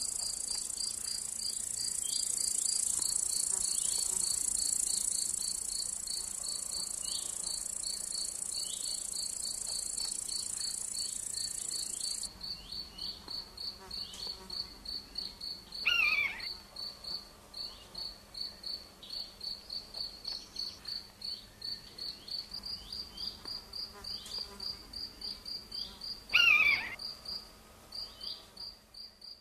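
Cricket chirping steadily in a regular high-pitched pulse several times a second, with a continuous higher insect buzz beneath it that cuts off abruptly about twelve seconds in. Twice, past the middle, a brief louder call slides downward in pitch over the chirping.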